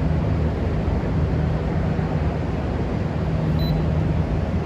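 Steady low hum of background room noise, with one short high beep about three and a half seconds in.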